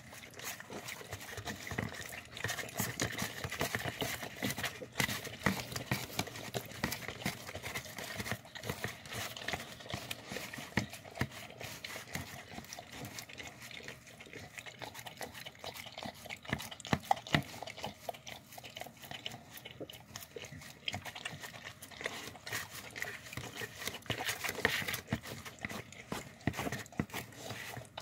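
A dog eating from a plastic tub, close up: a rapid, irregular run of wet chewing, smacking and licking sounds, with clicks of tongue and teeth against the plastic.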